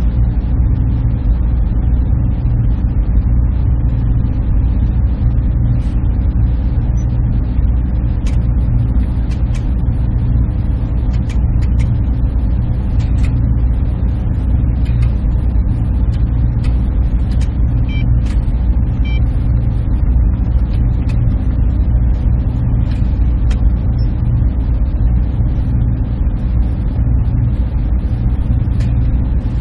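Server room machines running: a steady, dense hum and fan rush, heaviest in the low range, with a few faint high ticks scattered through it.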